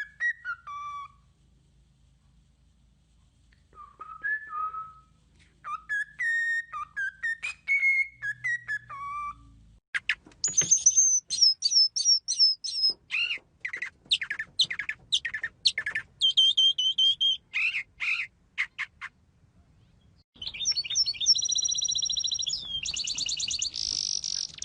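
Bird song: varied whistled phrases, then from about ten seconds in a run of higher, quicker repeated calls, and near the end a dense buzzy trill.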